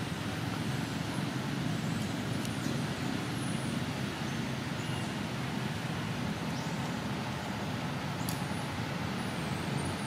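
A steady low outdoor rumble with a few faint, brief high chirps.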